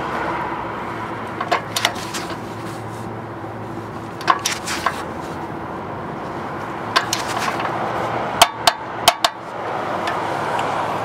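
Click-type torque wrench clicking on the bell crank arm's nut: sharp metallic clicks, mostly in quick pairs about a second and a half to three seconds apart, each time the wrench reaches its set torque of 120 foot-pounds.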